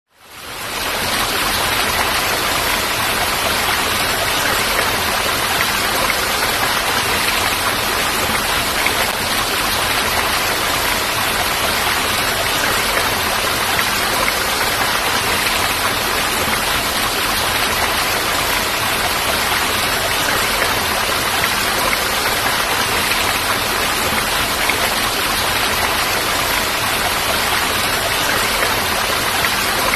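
Steady rush of falling water, fading in over the first second and then holding even.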